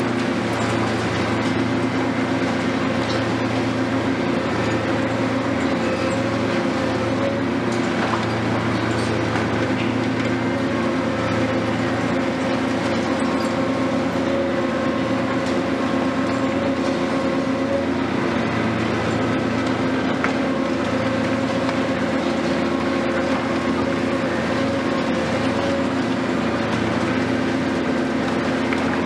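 Hitachi 470 long-reach demolition excavator's diesel engine and hydraulics running steadily under load, a constant drone with a steady hum, and a few faint knocks of masonry breaking.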